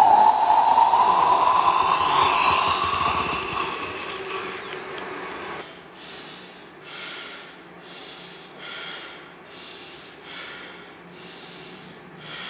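A sustained tone that slowly rises in pitch over a hiss, fading out over the first five seconds. It gives way to a woman's heavy breathing, about one breath a second.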